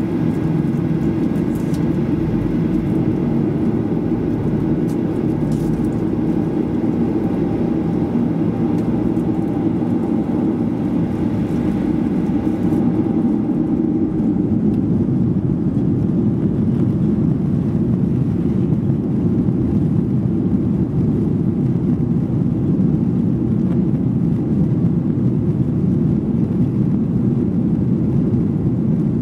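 Boeing 737-800 at takeoff power, heard inside the cabin over the wing: a loud, steady jet-engine and runway rumble as the airliner accelerates down the runway. It grows a little louder about halfway through.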